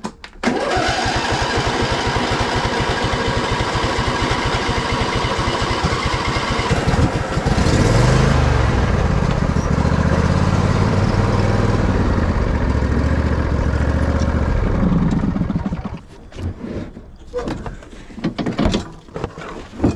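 Kubota BX25D tractor's three-cylinder diesel engine catching on the second start attempt and running with a fast, even rattle. About seven seconds in it is throttled up to a louder, deeper run, and the engine sound ends about sixteen seconds in.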